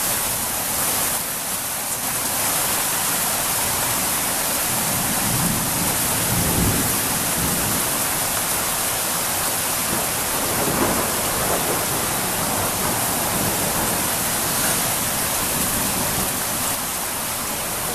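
Hailstorm: hail and heavy rain falling steadily on grass and a roof overhang, an even, continuous hiss with no letup.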